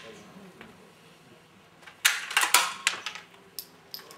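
Metallic clicking and clatter of a smallbore running-target rifle being handled after a shot: the action is worked to clear and reload, a quick cluster of sharp clicks about two seconds in, then a few single clicks near the end.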